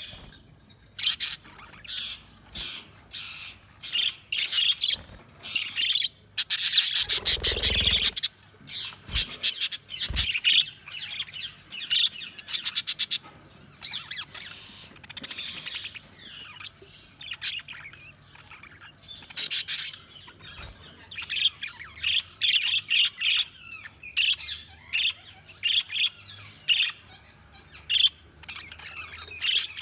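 Budgerigars chirping and chattering in short bursts throughout, with a dense run of rapid chatter about six to eight seconds in. A few brief low thumps mix in around the same time.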